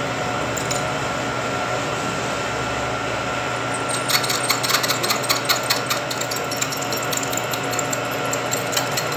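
Vertical milling machine running, its spindle and motor making a steady hum with a faint whine, while the end mill cuts a keyway into hard metal. From about four seconds in, a rapid run of sharp ticking and rattling lasts about three seconds as the cutter bites, then thins to a few scattered ticks.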